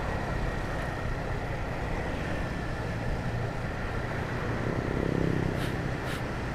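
Honda CBR150R motorcycle on the move: steady engine, road and wind noise from the rider's microphone, with a faint pitched hum swelling briefly about five seconds in.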